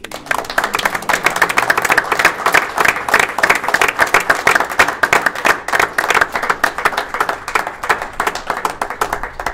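Audience applauding: many hands clapping, starting suddenly at the end of a reading.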